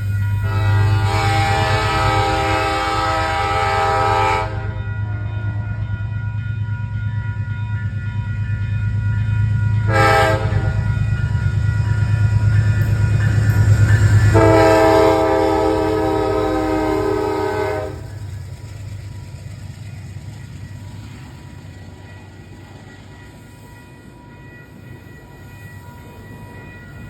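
Train horn sounding long, short, long over the steady rumble of a passing train. The pattern fits the end of the long-long-short-long warning for a grade crossing. The rumble fades after the last blast.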